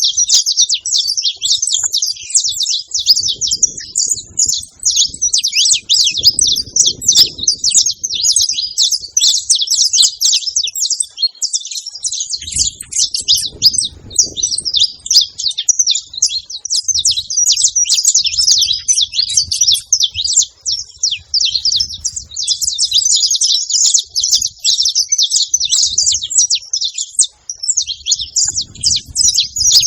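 Saffron finches, a female and a male, chirping and calling in a dense stream of fast, high chirps.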